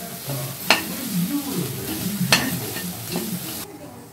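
Shredded cabbage frying on high heat, sizzling as a perforated steel spatula stirs it around the pan. The spatula gives a couple of sharp scrapes or clicks against the pan, about a second and two seconds in. The sizzle fades near the end.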